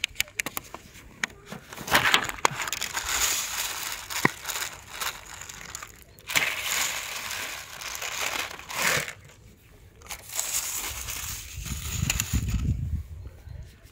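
Crinkling, crushing noise in three long bursts of a few seconds each, with a run of small clicks at the start and a low rumble near the end.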